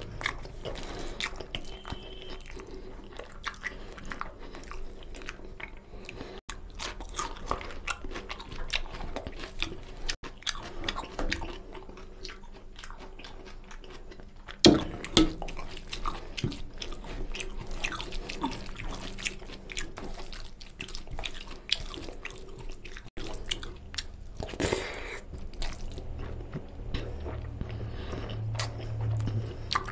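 Close-up mouth sounds of a person eating mutton paya (goat trotter curry) with rice: irregular wet chewing, biting and crunching, with one louder sharp knock about halfway through.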